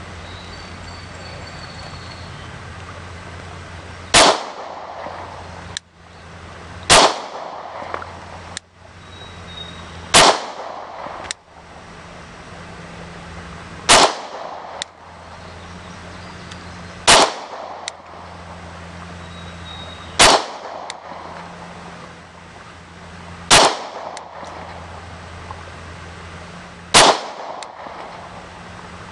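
Glock 23 pistol in .40 S&W fired single shots, eight in all, spaced about three seconds apart, each a sharp crack with a short ringing tail.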